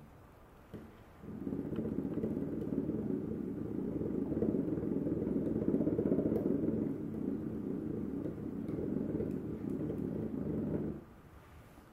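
A rubber bouncy ball on a rubber band whirling in circles on a hardwood floor around a hand-held ball: a steady whirring rumble that starts after a light knock about a second in and cuts off shortly before the end.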